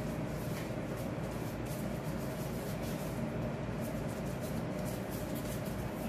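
Steady low room hum with faint, irregular rustling and soft handling noises from plastic-gloved hands pinching and shaping bread dough.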